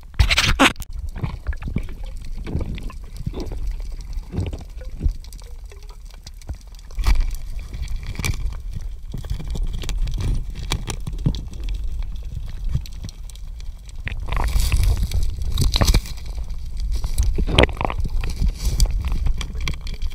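Muffled underwater sound of water moving against the camera's microphone, with many scattered knocks and scrapes as the diver's gloved hands and the camera handle the octopus among the rocks. A louder rush of water noise comes about three-quarters of the way through.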